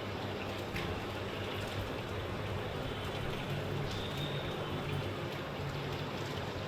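Steady rain falling, with a few sharp drop ticks. A faint high whistle comes in about four seconds in.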